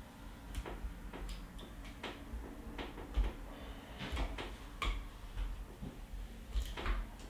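Irregular sharp clicks and small plastic snaps, about a dozen spread over several seconds, as small zip ties are worked tight around clear plastic coolant tubing on a fitting.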